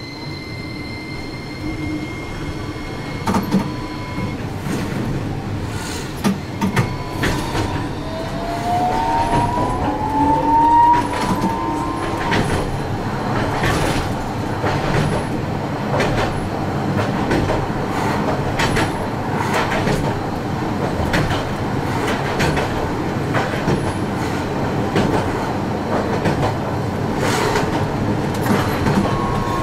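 Toyohashi Railroad T1000 tram pulling away and running along street track. Its traction motor whine rises in pitch as it gathers speed, over a steady running noise that grows louder, and the wheels click sharply many times over the rails.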